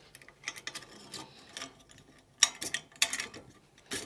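Steel banding strap being fed through a metal buckle and clip and pulled hand tight: irregular metallic clicks and scraping, loudest in a cluster about two and a half to three seconds in and again just before the end.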